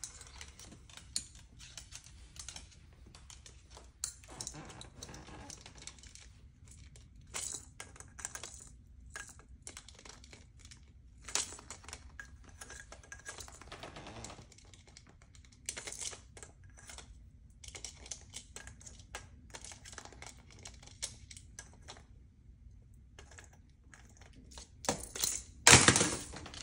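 Irregular clicking and tapping of a Moluccan cockatoo's claws on a hardwood floor, mixed with the knocking of a hard plastic wind-up duck toy carried in its beak. A louder clatter comes near the end.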